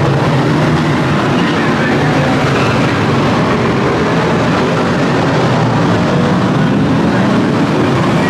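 A pack of F1 stock cars racing together, their V8 engines running in a loud, steady din with no let-up.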